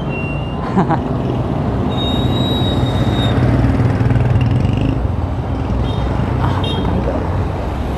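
Wind rushing over the camera microphone and street traffic while riding a bicycle in town, with a few brief high thin tones.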